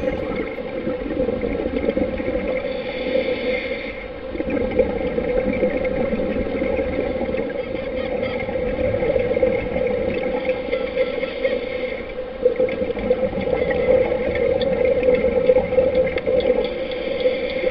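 Muffled underwater noise picked up by a camera in its waterproof housing, a steady rushing with swells of scuba regulator exhaust bubbles about two and a half seconds in and again from about twelve seconds in.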